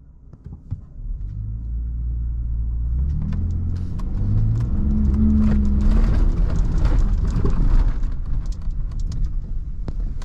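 A 2020 Ford Raptor's twin-turbo 3.5-litre EcoBoost V6 pulling away and accelerating on dirt, heard from inside the cab, its engine note building and climbing in pitch. From a few seconds in, tyre noise and a patter of mud and grit striking the truck join it.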